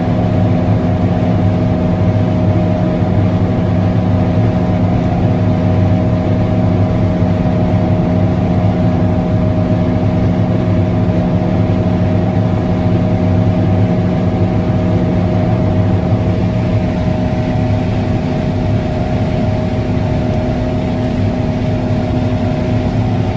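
John Deere S660 combine harvester running steadily, a loud even machine drone with several steady tones. One of the lower tones fades out about two-thirds of the way through.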